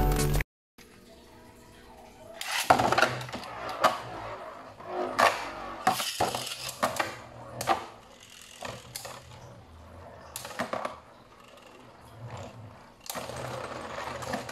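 Beyblade spinning tops clashing in a clear plastic stadium: a run of sharp clacks and rattles as they hit each other and the stadium walls, loudest in the first few seconds and thinning out later. A snatch of music cuts off about half a second in.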